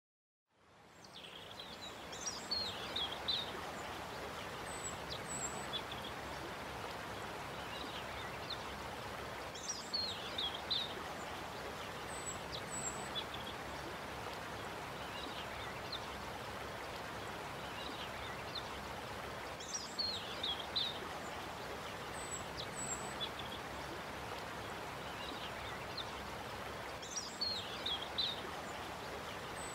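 Background ambience track: a steady rushing noise with bird-like calls, a group of falling chirps returning every seven to ten seconds and a pair of short high chirps between them, in a repeating loop. It fades in over the first second or two.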